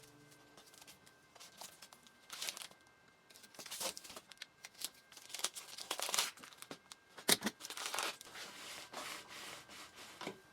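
Faint, irregular rustling, crinkling and short scraping sounds of hands working with materials, louder in a few spots about two, four and seven seconds in.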